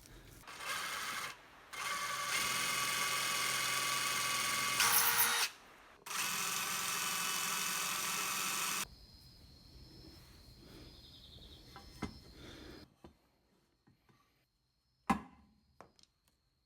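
A handheld electric power tool, drill-like, run in three bursts, the longest about three and a half seconds, each with a steady whine. About fifteen seconds in there is a single sharp knock.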